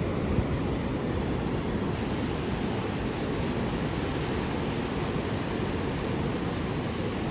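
Steady low rushing noise of surf mixed with wind on the microphone, without breaks or distinct events.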